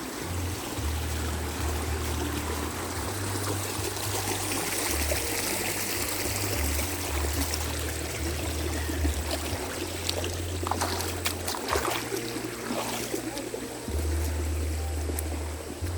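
Running water, a steady rushing like a stream, with low rumbles of wind on the microphone coming and going and a few clicks about ten to thirteen seconds in.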